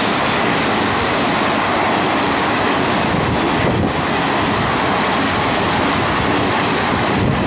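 ICF passenger coaches of an express train rushing past at speed close by: a loud, steady rush of wheels on rails and air.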